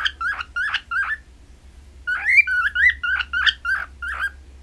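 Cockatiel chirping and whistling a quick run of short up-and-down notes, about four a second, in two bursts separated by a pause of about a second.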